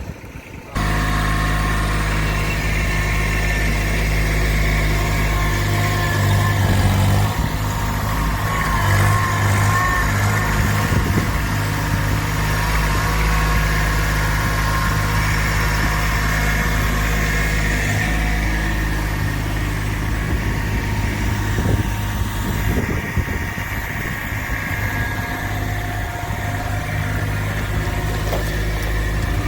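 Vehicle engine running steadily, coming in abruptly about a second in.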